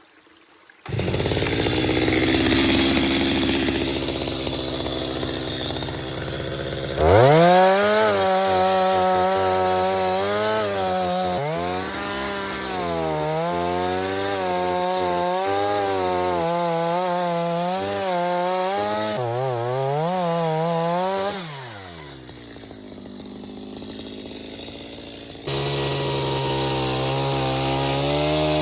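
Chainsaw cutting wood. From about 7 s in the engine runs at high revs, its pitch sagging and recovering again and again as the chain loads in the cut. It drops away a little after 20 s, and a steadier, lower-pitched running resumes near the end.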